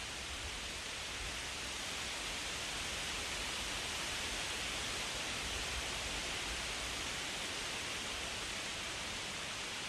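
Strong wind blowing through tree leaves: a steady, dense rustle that swells slightly around the middle.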